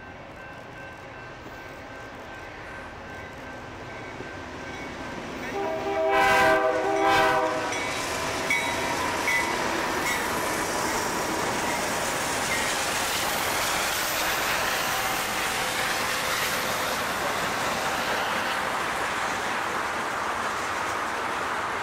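BNSF diesel-hauled freight train approaching and passing, its lead locomotive sounding its horn for about two seconds, about six seconds in. The locomotives then roll by, followed by a steady rumble and hiss of freight cars on the rails.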